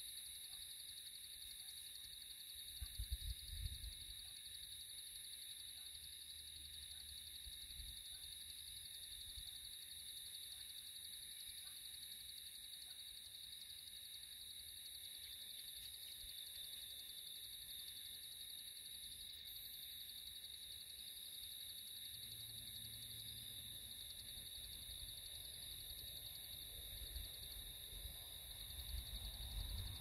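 Faint, steady high-pitched insect chorus at dusk, an unbroken even trilling with no separate calls. A brief low rumble comes about three seconds in, and low rumbling builds again near the end.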